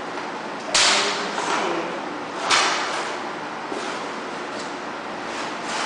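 A stiff sheet of clear epoxy floor coating being ripped up off the floor by hand: two sharp tearing rips, under a second in and again about a second and a half later, each fading off in a crackle. The coating has not bonded to the floor, which the owner puts down to stain residue left under it.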